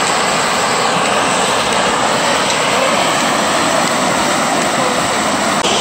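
Water rushing out of a culvert outlet and churning into whitewater in the channel below, a steady loud rush with no let-up.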